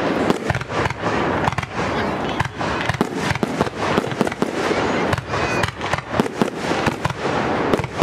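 Fireworks grand finale: a dense, unbroken barrage of shells bursting in quick succession, many bangs a second over continuous crackling.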